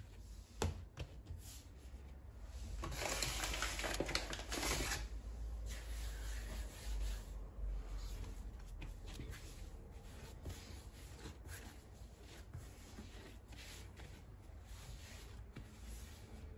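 Hands working food in a home kitchen: soft rubbing and light knocks, a sharp click under a second in, and a louder hissing stretch lasting about two seconds around the three-second mark.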